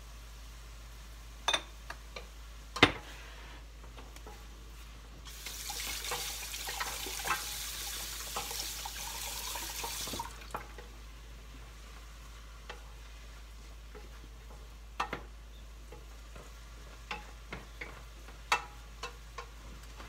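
Water running from a kitchen tap for about five seconds, starting and stopping abruptly, between scattered sharp knocks and clinks of utensils against cookware.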